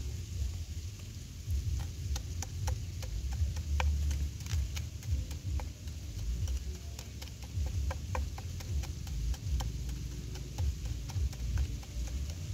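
Crushed invasive apple snail eggs crackling under a clear plastic sheet as it is pressed and dragged across them: irregular small clicks and pops, a few a second, over a steady low rumble.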